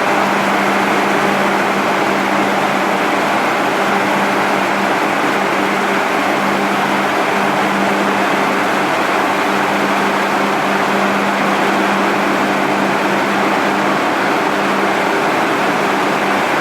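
A 60-inch tube axial fan running steadily: an even rush of moving air with a steady hum under it.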